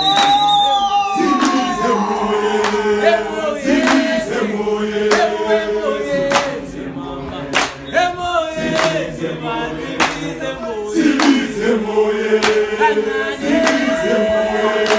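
A group of young men singing an isiZulu song together unaccompanied, in harmony, with handclaps cutting in through it.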